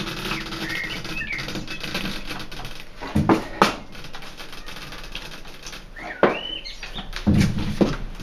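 Tire bead being levered over a steel rim's edge with a long bar on a manual tire changer. Rubber squeaks against the rim about a second in and again about six seconds in, with sharp clicks and knocks of the bar against the rim in between and near the end.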